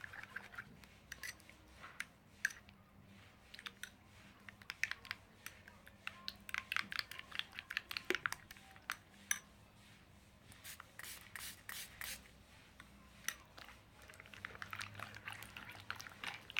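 Glue slime being stirred in a container as borax water firms it up, giving irregular sticky, wet clicks that come in busier spells.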